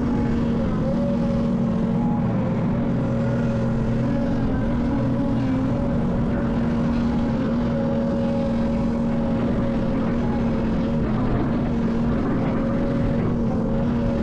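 Diesel engine of an excavator working with a dump truck, running steadily at a constant pitch.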